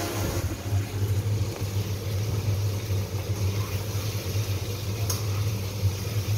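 Stove-top cooking: a steady low hum with stirring in a wok over a gas burner, and a single clink of the metal spatula against the pan about five seconds in.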